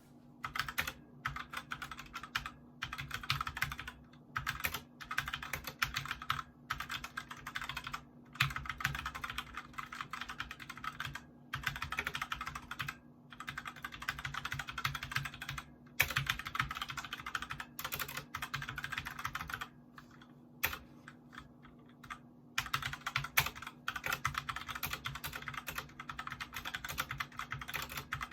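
Typing on an ADX Firefight mechanical gaming keyboard with linear red switches: fast runs of keystrokes broken by short pauses.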